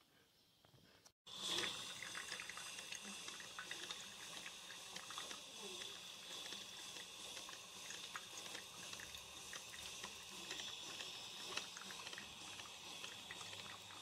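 Drip coffee maker brewing, starting about a second in: a steady hiss with small crackling and bubbling as hot coffee drips into the glass carafe.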